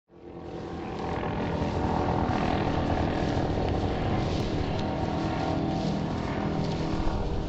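Grumman F7F Tigercat in flight, its twin Pratt & Whitney R-2800 radial engines and propellers giving a steady, dense aero-engine drone that rises over the first second and then holds.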